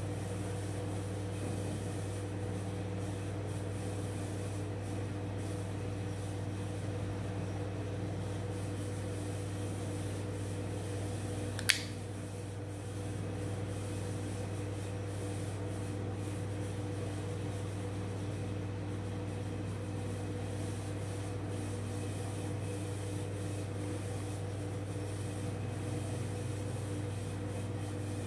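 One sharp metallic click partway through as the QSP Pelican flipper knife is flicked open on its ceramic ball bearings and the blade snaps into its liner lock. Under it runs a steady low hum.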